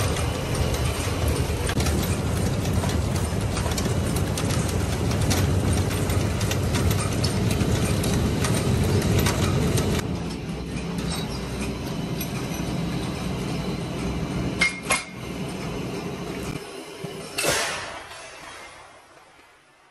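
Chain-driven popcorn cannon turning: a steady clatter of roller chain, sprockets and drum with many small metallic clinks, dropping quieter about halfway through. Near the end there are two sharp metal knocks, then a short rushing burst as the cannon is opened and the popcorn blows out, fading away.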